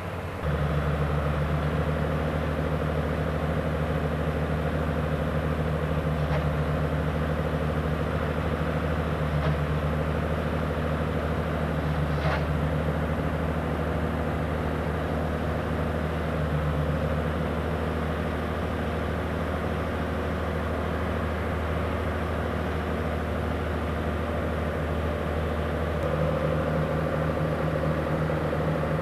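Heavy diesel farm machinery running steadily at a constant engine speed, a continuous low hum that eases a little for several seconds in the middle, with a few faint clicks.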